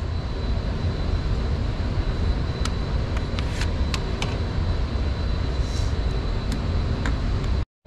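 A steady low rumble, with a handful of light clicks and taps as a KelTec CP33 .22 pistol and its magazine are handled after the gun has been shot empty. The sound cuts out completely for a moment near the end.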